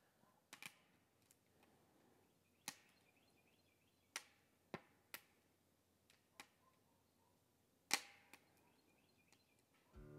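Wood fire crackling in a stainless steel smokeless fire pit: scattered sharp pops from the burning logs, about eight, the loudest near the end, over faint quiet between them.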